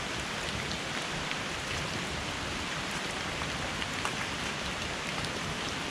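Steady heavy rain falling, an even hiss with scattered drop ticks close by.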